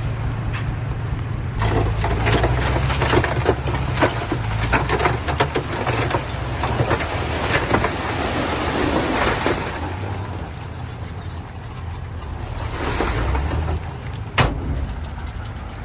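Heavy diesel earthmoving machine, most likely a bulldozer, running with a steady low hum, over a dense run of clanks and knocks from about two to ten seconds in and one sharp knock near the end.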